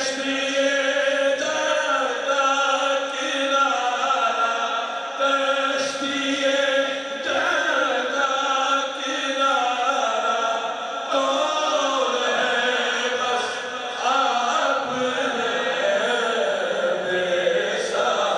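A man's voice chanting a naat through a handheld microphone, unaccompanied, drawing the words out in long held notes.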